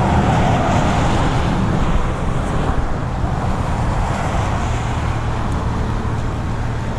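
Steady rumble of road traffic on a highway bridge, with no distinct events standing out.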